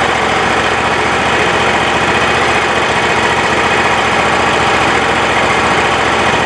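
Wood-Mizer LT35 sawmill's 25 hp Kohler Command Pro V-twin engine running steadily as it warms up.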